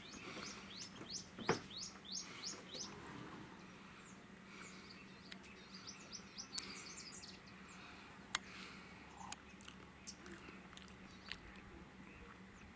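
Small birds chirping: runs of quick, high chirps, about three a second, in the first few seconds and again around the middle, over a faint outdoor background. Two sharp clicks stand out, the loudest about a second and a half in, another a little past the middle.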